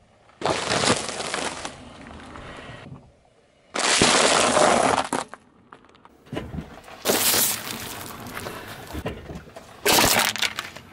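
A car tyre crushing dry food packets and a drink can in turn: a box of long-grain rice and a bag of dry pasta crackling and crunching as they burst, then an aluminium can crumpling flat near the end. It comes as several separate bursts of crunching, each cut off abruptly, the loudest about four seconds in.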